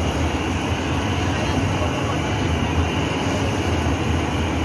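Steady roar of the gas burner under a flat-top griddle where seafood satay skewers are cooking.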